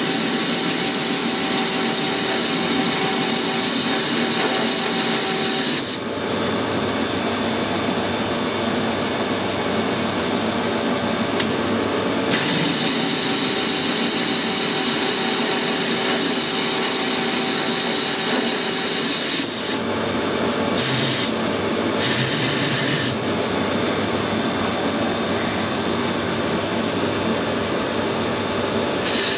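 Metal lathe running steadily while the tool cuts an old bearing bush, thought to be cast iron, with a high cutting hiss over the machine's hum. There are two long cuts of several seconds each, then a few short touches of the tool.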